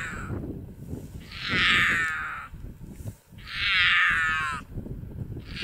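Puma calling for a mate: loud, drawn-out, gravelly calls about a second long, repeating every two seconds or so.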